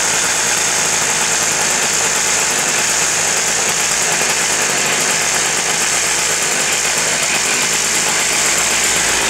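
Husqvarna 357 XP's 57 cc two-stroke chainsaw engine running steadily.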